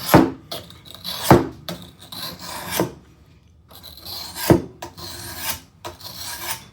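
Fine sharpening stone stroked along the steel blade of a pair of loppers, honing the edge: a series of uneven scraping strokes, roughly one every second or so.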